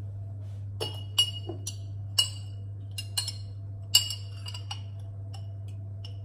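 Metal spoon clinking against a glass olive jar while scooping out olives: a string of sharp, ringing clinks at an irregular pace.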